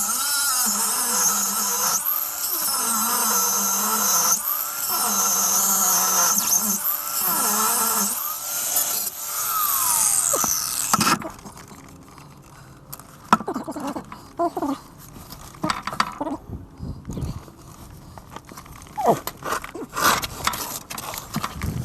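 Angle grinder cutting through the steel of a Land Rover Discovery 2's rear chassis rail, its motor whine dipping and recovering as the disc bites. It stops about eleven seconds in, followed by scattered knocks and clinks of metal being handled.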